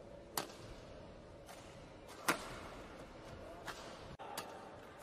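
Sharp cracks of badminton rackets striking a shuttlecock, several hits a second or so apart with the loudest about two seconds in, over a steady hall hubbub.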